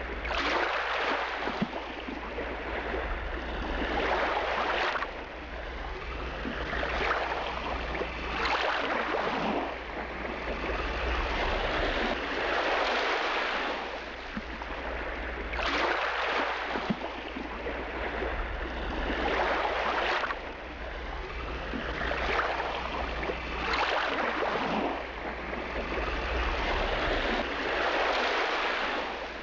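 Water rushing and splashing along the hull of a moving motor passenger boat, surging every second or two, over a steady low rumble.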